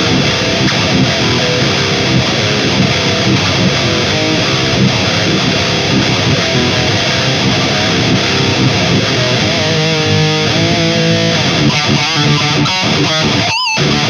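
High-gain distorted electric guitar playing a metal riff through a Mooer 005 Brown Sound micro preamp, boosted by a tube screamer, into a Mesa 4x12 cabinet with Vintage 30 speakers, close-miked with an SM57. Held notes waver with vibrato toward the end, and the playing stops for a split second just before it closes.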